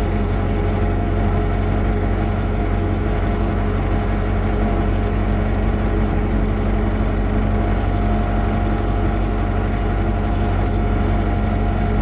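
Tractor diesel engine running at a steady speed, an even drone with no change in pitch or level.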